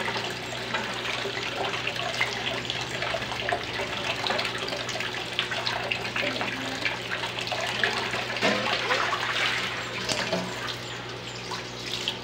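Squid and sliced eggplant sizzling and bubbling in an aluminium pan: a dense, steady crackle of small pops, with a steady low hum underneath.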